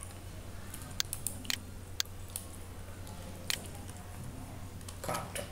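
A few scattered, irregular clicks of computer mouse and keyboard use over a steady low electrical hum.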